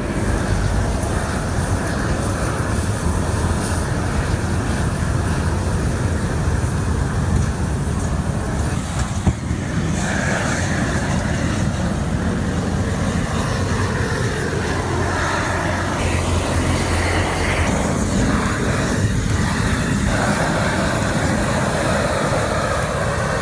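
Flame weeding machine running, its gas burners and engine making a loud, steady racket that shifts in tone slightly about ten seconds in.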